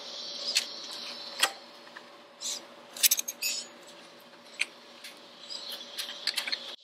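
Irregular small metal clicks and clinks of a screwdriver prodding a foot peg's return spring and the steel peg mount, as the spring is worked into its seat. A faint steady hum runs underneath.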